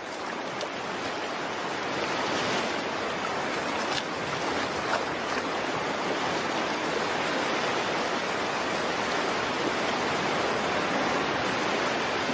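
Steady rush of a fast-flowing stream, water running over rocks.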